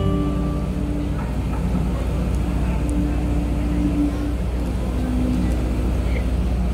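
Steady low rumble of an outdoor stage, with a few faint held sung notes from a youth choir during a lull in the music.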